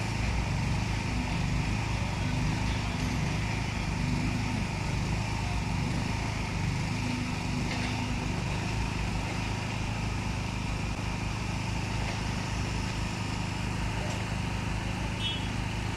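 Steady rumble of road traffic going by, with a faint engine drone rising and falling a few times.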